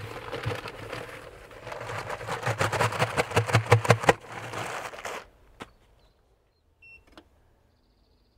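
Electric cement mixer running while a bag of cement powder is tipped into the turning drum: a scraping, rattling hiss over the motor's steady hum. It cuts off about five seconds in, leaving near quiet with a few faint clicks.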